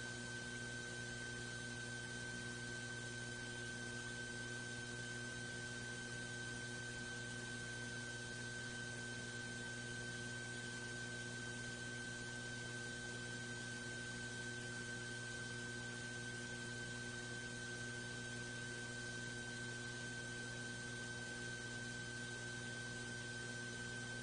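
Steady electrical hum and hiss with a constant high whine above it: the recording's own noise floor, with no other sound.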